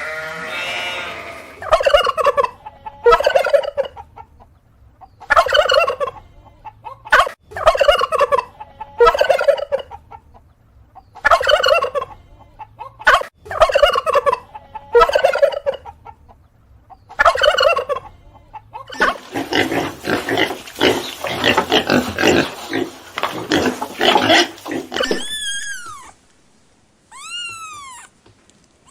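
Turkeys gobbling: a dozen or so separate gobbles a second or two apart, then several birds gobbling at once for a few seconds. Near the end a few short calls that rise and fall in pitch.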